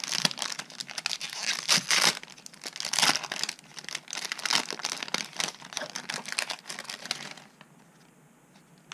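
Foil wrapper of a Yu-Gi-Oh booster pack crinkling and tearing as it is worked open by hand, in dense irregular crackles that stop about seven seconds in.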